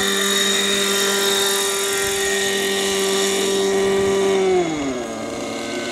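Radio-controlled scale MD500 helicopter's glow-fuel engine and rotors running at a steady high whine in hover. About three-quarters of the way through, the pitch slides down and the sound eases as the throttle is brought back.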